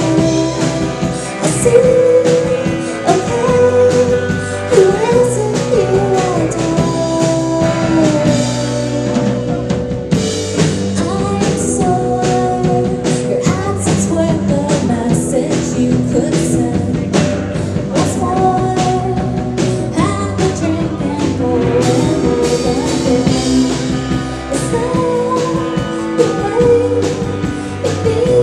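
Live rock band playing loudly, in a punk and surf rock vein: a woman sings lead over electric guitars and a drum kit.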